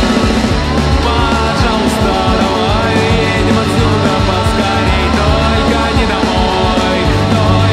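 Rock music playing: a full band with a strong bass line and gliding melodic lines, loud and continuous.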